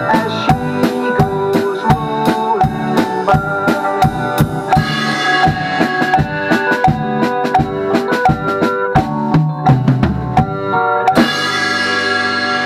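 Drum kit played along to a backing track: a steady groove of quick cymbal and drum strokes over pitched backing music, which breaks into sparser hits and fills about five seconds in. It ends with a final crash about eleven seconds in, the crash and the last chord left ringing.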